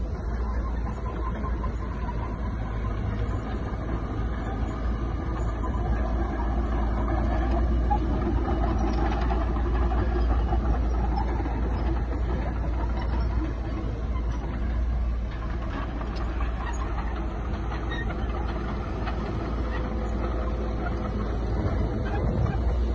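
Heavy earthmoving machinery running steadily, a continuous diesel engine rumble with a deep low end.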